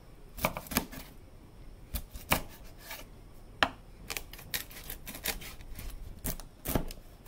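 A broad-bladed kitchen knife chopping a whole hilsa fish into steaks on a wooden cutting board: irregular sharp knocks as the blade cuts through the fish and strikes the board, a few close together at a time.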